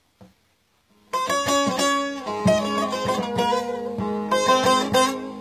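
Instrumental music led by a rapidly plucked string instrument over a steady low note, starting about a second in: the opening of a Turkish song.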